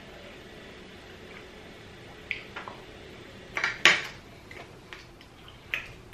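Metal fork laid down on a ceramic plate, giving a sharp clink a little under four seconds in, with a few lighter clicks before and after.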